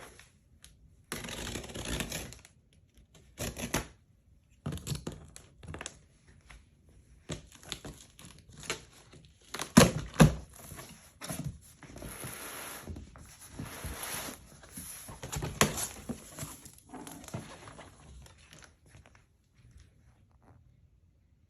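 Packaging being torn open and handled: irregular tearing, crinkling and rustling, with a sharp knock about ten seconds in, then it quietens near the end.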